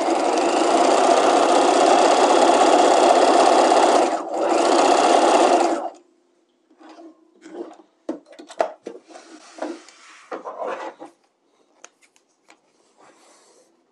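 Sewing machine running steadily at speed, stay stitching a straight seam one inch in along the center back of a skirt panel, with a brief pause about four seconds in. It stops about six seconds in, and a few faint clicks and rustles follow.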